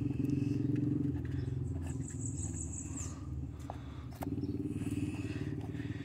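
A motor running steadily with a low, even hum, plus a few faint clicks and a brief high pulsing trill about two seconds in.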